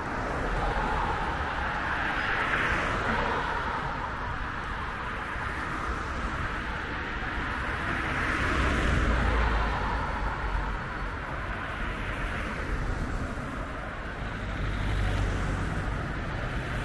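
Road traffic: cars passing on a busy multi-lane road, a steady hiss of tyre and engine noise that swells and fades several times as vehicles go by.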